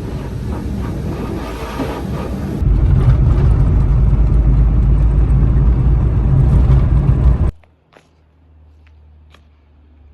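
High-pressure wash jet spraying the car at a self-service car wash, heard from inside the cabin as a dense rushing noise with a heavy low rumble. It gets much louder about two and a half seconds in, then cuts off sharply, leaving only a quiet low hum with a few faint clicks.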